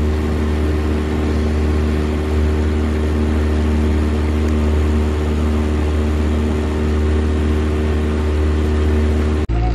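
Boat motor running at a steady cruising speed: a constant low drone that drops out for a moment near the end.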